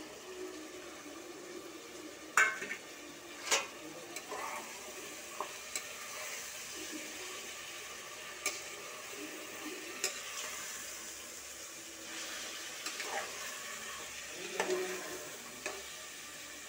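Chopped vegetables sizzling in hot oil in a pressure cooker while a spatula stirs them, scraping and knocking against the pot now and then. The loudest knocks come about two and three and a half seconds in.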